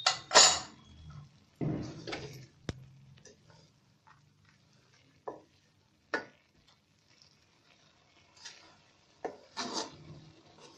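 A spatula scraping against a metal kadai as it turns over and mixes cooked dry urad dal, in scattered uneven strokes with a few clicks, the loudest right at the start and again near the end.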